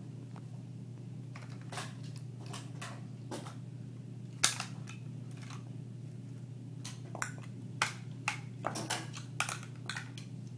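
Large plastic toy building blocks clicking and clacking as a small child handles them and presses them together: about a dozen sharp clicks, the loudest about four and a half seconds in and a quick run of them near the end, over a steady low hum.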